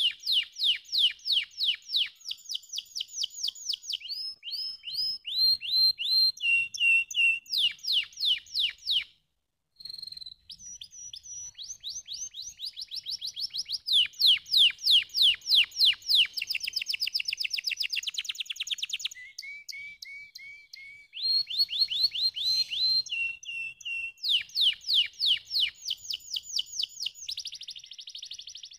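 White domestic canary singing: a long song of fast trills of rapidly repeated notes that change from phrase to phrase, with a short break about nine seconds in.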